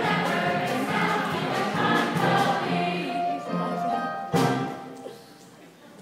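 Choral singing with accompaniment. A sudden loud stroke comes a little past four seconds in, and then the music dies away.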